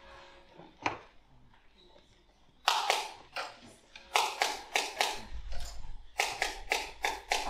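Manual typewriter being typed on: one key strike about a second in, then runs of sharp, separate key strikes at several a second through the second half.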